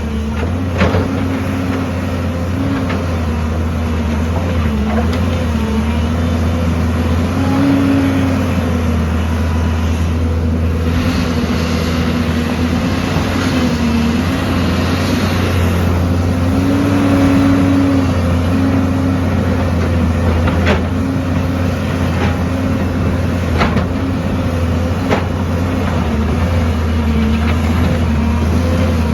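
Heavy excavator's diesel engine running steadily under work, with a whine that rises and falls in pitch and a few sharp knocks in the second half.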